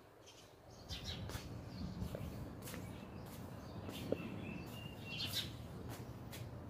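Birds chirping: many short high calls scattered throughout, with one longer held note about four to five seconds in.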